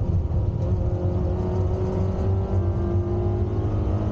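Peugeot 106 Rallye's four-cylinder petrol engine at high revs under full load, heard from inside the stripped cabin, its pitch climbing slowly as the car accelerates.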